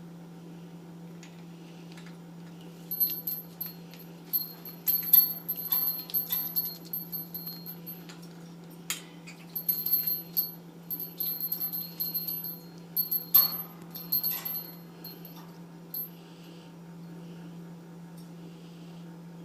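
Ice cubes clinking and knocking against a water dish with a ringing tone, in irregular bursts, as an Eclectus parrot picks at the ice.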